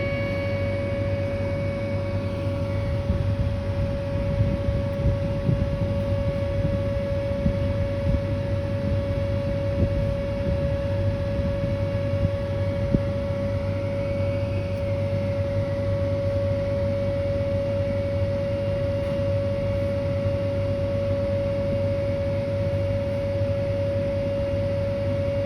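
Whelen 2810 electronic outdoor warning siren sounding a steady 560 Hz tone in a test, one unbroken pitch with overtones.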